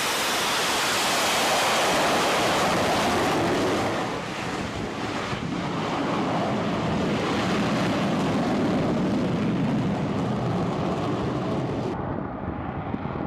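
Steady jet roar of an F-35B's engine mixed with wind buffeting the microphone on a ship's deck. The roar is loudest at first and drops slightly about four seconds in.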